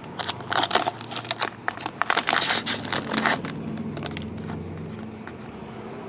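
Trading cards and foil pack wrappers being handled: rustling and crinkling in quick bursts for about three and a half seconds, then quieter.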